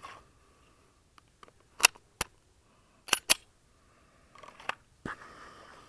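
Smith & Wesson M&P9L pistol being loaded and holstered: a series of sharp metallic clicks and clacks, two pairs and then a few more, from the magazine seating, the slide being worked and the gun going into the holster.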